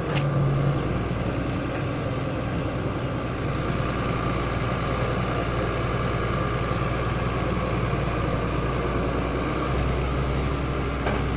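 Wheeled excavator's diesel engine running steadily as a continuous low drone.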